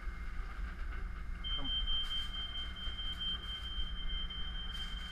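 Fire alarm sounding one steady high-pitched tone, starting about a second and a half in, set off by steam from the open oven.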